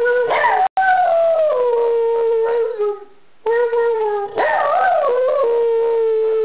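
Pet dog howling: two long howls with a short pause about three seconds in, the first sliding down from a higher pitch and the second wavering before holding a steady note.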